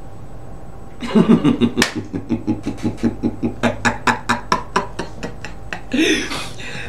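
A man laughing hard: a long run of rapid ha-ha bursts, about four a second, starting about a second in and dying away near the end.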